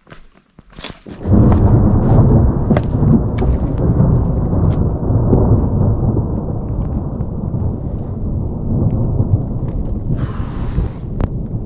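Thunder rumbling, starting suddenly about a second in after a brief lull and rolling on heavily at a low pitch, with scattered sharp ticks over it.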